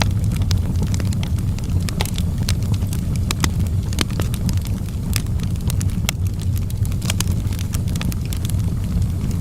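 Wood fire burning in a fireplace: a steady low rumble of the flames with frequent sharp, irregular crackles and pops.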